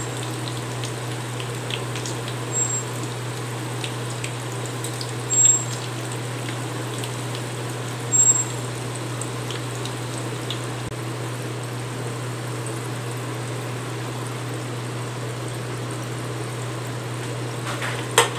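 Balls of idli batter deep-frying in hot oil on a low flame: a steady sizzle and bubbling. A metal slotted spoon scrapes briefly against the pan a few times, loudest about five and eight seconds in, and there is one sharp tap near the end.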